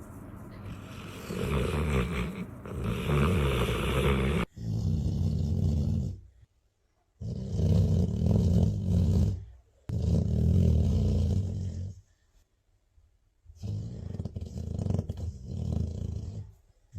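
A sleeping dog snoring: a series of long, low snores, each about two seconds, with short quiet pauses between them.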